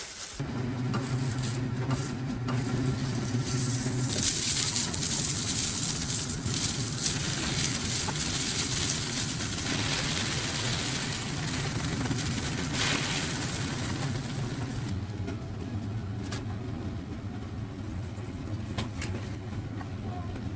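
Food sizzling in a frying pan over a steady low hum. The sizzle swells about four seconds in and eases off after about fifteen seconds.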